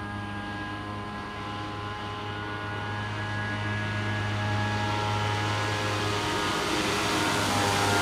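Jet ski engine running at steady high speed, a constant drone that grows louder over the second half as the craft comes close and passes, with a rising hiss of water spray.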